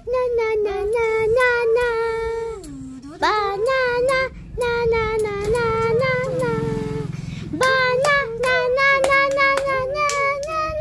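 A young boy singing on his own in a high child's voice: a string of short held notes, with a brief pause about two-thirds of the way through.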